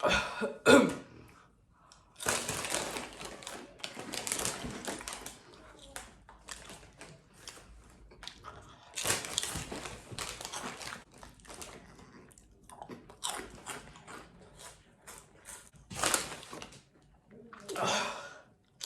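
Loud close-up crunching and chewing of spicy Cheetos, with bites and crunches in irregular bursts.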